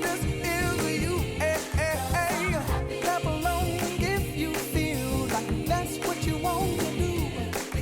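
Background pop song with a singing voice over instrumental backing and a steady beat.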